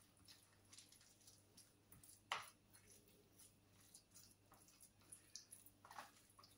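Very faint squelching and scraping of a utensil stirring shredded chicken with mayonnaise and cream cheese in a plastic tub, with one sharper click a little over two seconds in.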